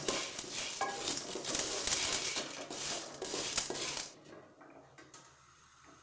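Wooden spatula stirring unpopped popcorn kernels in oil in a metal pot, the kernels scraping and rattling against the pot in quick strokes. The stirring stops abruptly about four seconds in, leaving only a faint hum.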